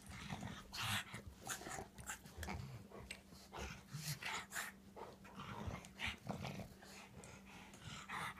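Two dogs play-fighting, a large one and a small one, with irregular short growls, snuffles and scuffling.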